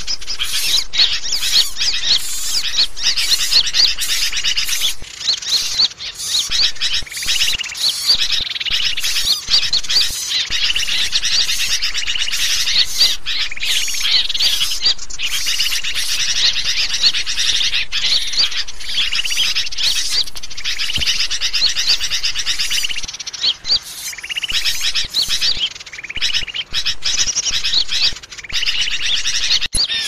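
Dense chorus of many small songbirds chirping and twittering over one another: a mixed bird-lure (suara pikat) recording used to draw wild birds in. It thins out briefly a few times, most noticeably for a few seconds near the end.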